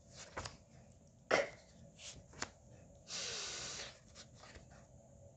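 A woman saying bare phonics sounds without a vowel: a short breathy "p" puff about a second in, then a drawn-out "fff" hiss lasting most of a second past the middle. Small clicks of flashcards being handled come in between.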